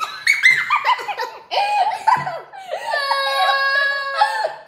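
Girls laughing loudly together, several voices at once. About three seconds in, one voice rises into a long high-pitched squeal of laughter held for over a second.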